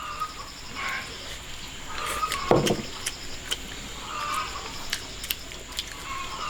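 Outdoor rural background: a steady high-pitched hum with scattered sharp clicks and a few short animal calls.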